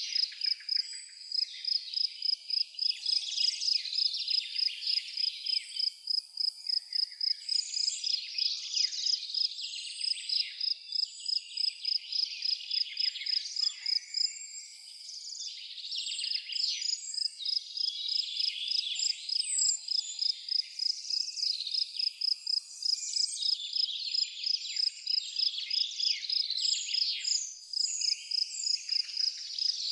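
Crickets chirping in a steady, high-pitched pulse a few times a second, with several birds singing and chirping over it.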